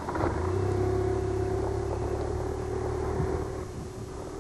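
Motorcycle engine running at a steady pitch under way. It swells up sharply about a quarter second in and eases off near the end.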